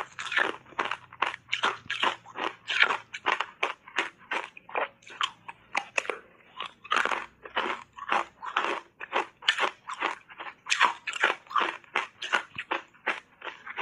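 Hard ice coated in matcha powder being bitten and chewed, a rapid run of sharp crunches, about three or four a second.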